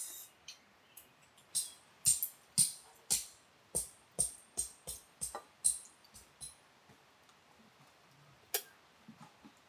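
A series of sharp clinks and taps of hard objects, irregular at about two a second, then a single one near the end.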